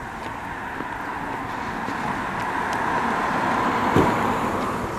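A car passing close by on the road, its tyre and engine noise swelling to a peak about four seconds in and then fading, with light footsteps on pavement.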